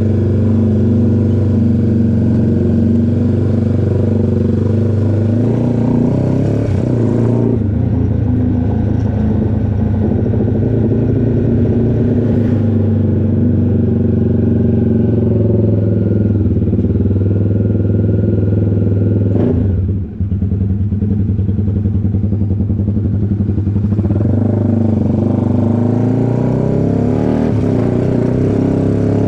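Honda CBX 250 Twister's single-cylinder engine, bored out to 79 mm, running loud through a tuned exhaust. It holds a fairly steady engine speed, with a short dip in the sound about twenty seconds in.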